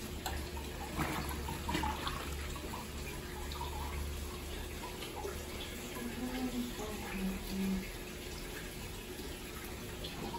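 Water running and sloshing in a top-loading washing machine's tub full of towels and soapy water, a steady rushing sound, with a few light knocks in the first two seconds.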